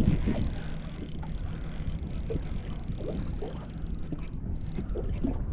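Wind on the microphone and water washing against the hull of a small boat at sea, a steady low rush.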